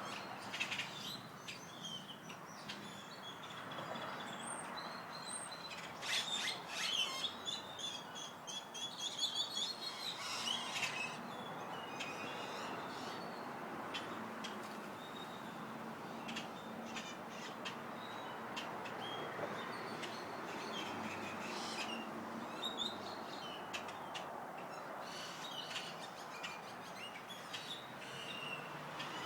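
Small birds chirping and calling over one another, busiest from about six to eleven seconds in and again near the end, over a steady background hiss.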